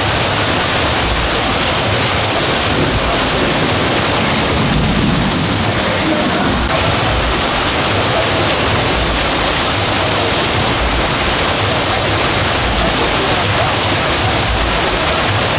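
Heavy rain pouring down in a torrential storm: a loud, steady rushing hiss with no let-up.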